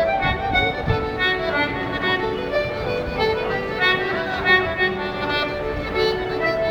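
Irish traditional band playing a tune in quick, even notes, with accordion and fiddle carrying the melody.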